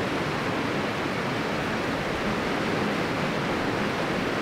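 Fast-flowing mountain river rushing over rapids, a steady, even noise of running water.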